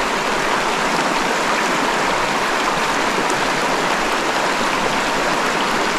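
Shallow, rocky mountain stream rushing steadily over a riffle of cobbles and boulders, heard close from right in the water.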